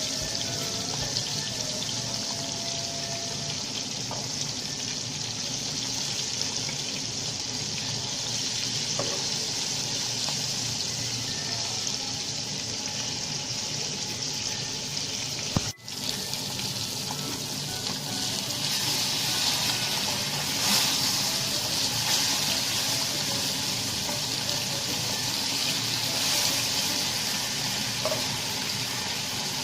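Climbing perch (koi fish) frying in hot oil in a pan, a steady sizzle. There is a brief cut just past the middle, and the sizzle grows louder afterwards.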